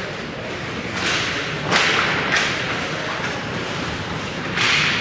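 Ice hockey skate blades scraping the ice close by, several short hissing scrapes, the loudest about two seconds in and near the end.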